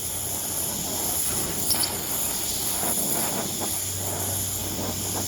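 Handheld gas torch flame hissing steadily while heating a crankshaft bearing to expand it off the shaft, with a light click or two near the middle and a low hum coming in near the end.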